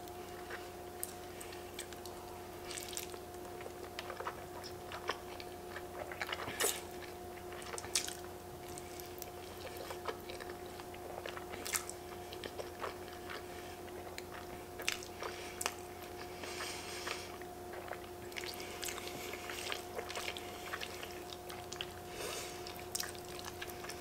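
Close-up eating sounds of creamy fettuccine alfredo: wet chewing with many short mouth clicks, and a few hissy slurps as noodles are sucked in. A steady faint hum runs underneath.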